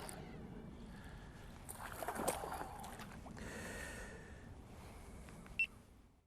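Water splashing as a hooked bass thrashes at the surface beside the boat, with some rough handling noise and one sharp click near the end.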